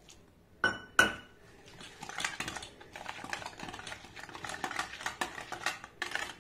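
Wire whisk beating a thin flour batter in a stainless steel bowl: two sharp metal clinks with a brief ring against the bowl within the first second, then a fast, continuous rattle of the wire loops against the steel.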